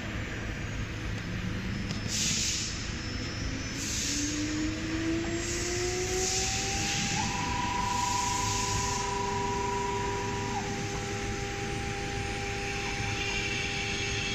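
Multi-spindle woodworking CNC router's spindle motors spinning up: a whine that rises in pitch over several seconds and then holds as a steady high tone, with short hissing bursts about every two seconds.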